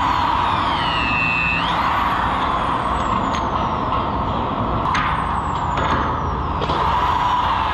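Electric shear wrench snapping 1-inch tension-control bolts: a high motor whine that jumps up in pitch and then slowly sinks as it bears down on each bolt, about three times, with a few sharp clicks near the middle.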